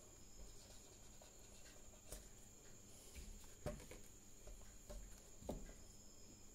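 Near silence: room tone with a faint steady high whine and three soft taps, from a pocket calculator being handled.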